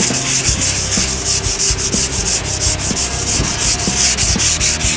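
Hand sanding of body filler (glazing and spot putty) on a pickup's steel fender lip with a thick-backed sheet of sandpaper, no block: quick, even back-and-forth strokes with a scratchy hiss.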